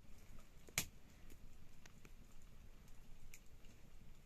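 Wood fire crackling on an open hearth: scattered small pops and ticks, with one sharp crack about a second in.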